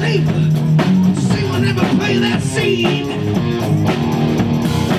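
Live rock band playing electric guitar and drum kit, loud and steady, in a passage without singing.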